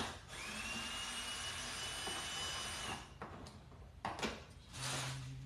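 Cordless drill-driver running while removing screws from a UTV's roll-cage speaker mount. The first run lasts about two and a half seconds, its whine rising as it spins up and then holding steady. A click comes a little after four seconds, followed by a shorter second run near the end.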